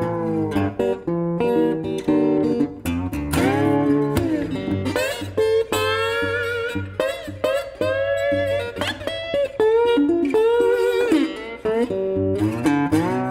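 Blues guitar music with slide guitar, notes gliding up and down in pitch.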